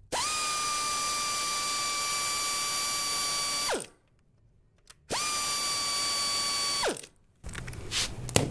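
Pneumatic air ratchet running twice, spinning out a timing-belt cover bolt: a steady high whine that drops in pitch as it winds down each time, the first run about three and a half seconds, the second under two. Near the end come brief clatters of handling.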